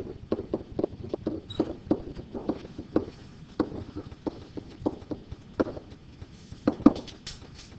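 Pen tapping and knocking against an interactive whiteboard's surface as numbers and units are written: irregular taps, a few a second, the loudest one near the end.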